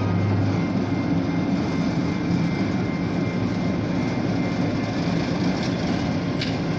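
Diesel locomotives of a slow-moving train running steadily as they pass, a continuous low engine rumble.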